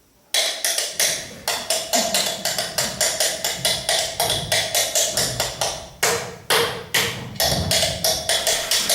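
Rhythmic percussion played on drinking glasses, cutlery and a table, starting suddenly about a third of a second in. It goes on as a fast run of sharp strikes, several a second, with a ringing tone sounding through.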